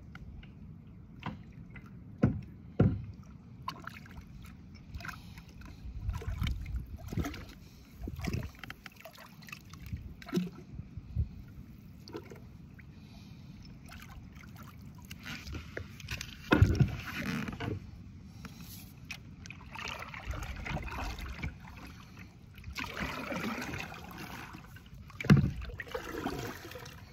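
Scattered knocks and thumps against a kayak's hull as gear is moved about, then the splash and drip of a kayak paddle working the water over the last few seconds.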